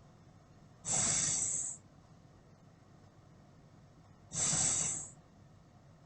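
A person's voice making the phonics sound of the letter S, a drawn-out 'sss' hiss, twice, about three and a half seconds apart.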